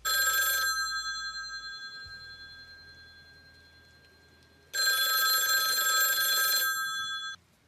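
Telephone bell ringing twice: a short ring at the start that keeps sounding and fades away, then a longer ring of about two and a half seconds that cuts off suddenly.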